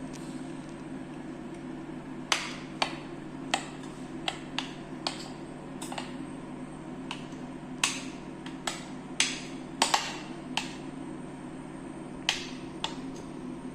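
About fifteen irregular sharp taps and clinks of a utensil and kitchen containers as batter is poured and scraped into a lunch box, starting about two seconds in and heaviest near the middle, over a steady low hum.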